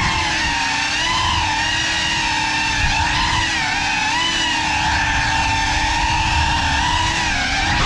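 GEPRC Cinelog35 FPV cinewhoop's motors and ducted propellers whining on 6S power, heard from the GoPro on board, the pitch wavering slightly with throttle.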